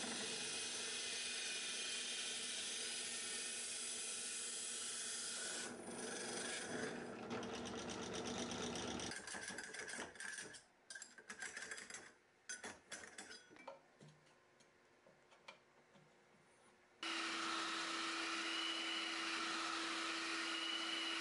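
Benchtop drill press running a hole saw through rubber sheet, cutting out discs; about nine seconds in the motor stops. A few seconds of scattered clicks and knocks follow as the hole saw is handled. About seventeen seconds in, an oscillating spindle sander starts running steadily, its pitch wavering slowly up and down.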